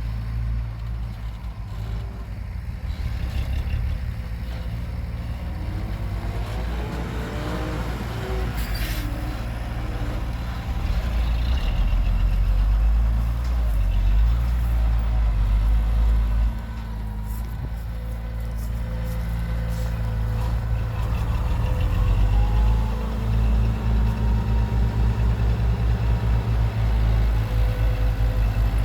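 Heavy diesel engines of earthmoving machinery running with a deep, steady rumble, their pitch rising and falling as they rev. A brief sharp hiss comes about nine seconds in.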